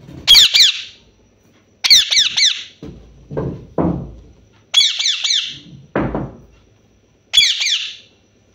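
Alexandrine parakeet giving loud, shrill screeches in four bursts, each a quick run of three or four sharp notes, spaced about two seconds apart. Lower, shorter sounds come between the bursts in the middle.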